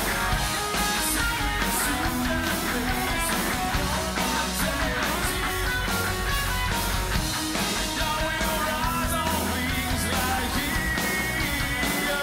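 Live rock band playing an electric guitar solo, the lead guitar bending and holding notes over the band's bass and rhythm.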